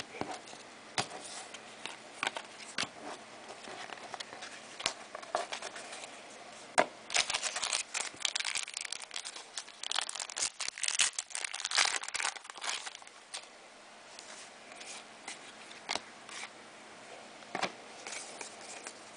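Trading cards and their plastic wrapping being handled: crinkling and rustling with scattered sharp clicks, busiest through the middle.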